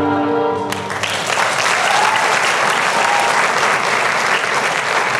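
Sustained music cuts off under a second in, and an audience applauds for the rest of the time.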